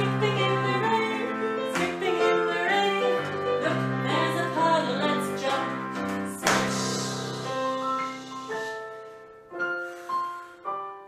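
A children's song: a woman singing over a digital piano accompaniment. About eight seconds in the singing and the full chords drop away, leaving a few single piano notes.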